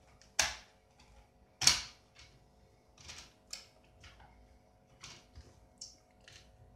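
Sharp plastic snaps and clicks as the bottom access cover of an HP Pavilion dv3 laptop is pulled off. There are two loud snaps within the first two seconds, then several lighter clicks.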